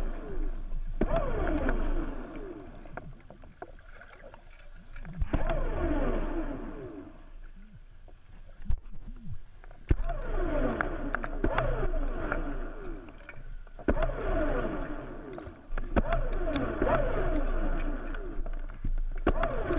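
Scuba diver's exhaled breath bubbling out of the regulator, in regular bursts of about two seconds every few seconds, with quieter pauses for the in-breath between.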